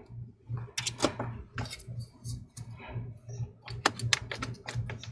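Irregular small clicks and taps of hands seating a replacement laptop CPU fan and handling a small Phillips screwdriver, busiest about four seconds in, over a steady low hum.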